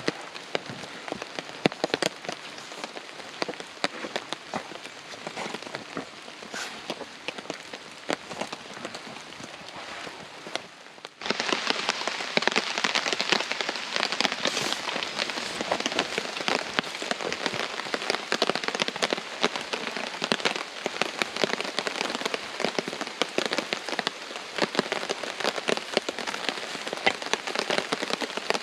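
Heavy rain falling on a tarp shelter, a dense hiss full of individual drop hits. About eleven seconds in it jumps suddenly louder and stays so.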